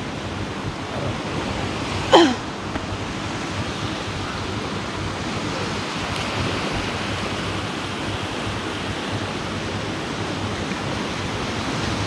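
Steady hiss of sea surf washing on a sandy beach. About two seconds in, a single short, loud, sharply falling squeal cuts through it.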